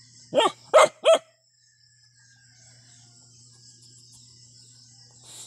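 A puppy barking three times in quick succession, short sharp barks, at a crab holding up its claws in front of it.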